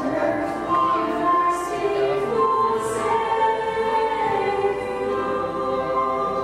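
A group of women singing a sacred song in harmony into microphones, on slow, long-held notes.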